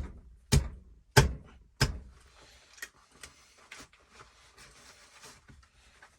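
Hand pop-rivet gun being squeezed to set a rivet: a sharp click with each stroke of the handles, four loud ones about two thirds of a second apart, then a few fainter clicks.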